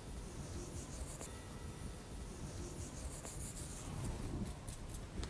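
Fine sand being sprinkled by hand onto a square metal Chladni plate: a faint, scratchy hiss with a few light ticks.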